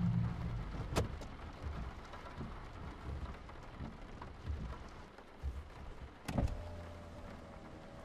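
Rain on a car's roof and windows, heard from inside the cabin, with a sharp click about a second in and another about six seconds in.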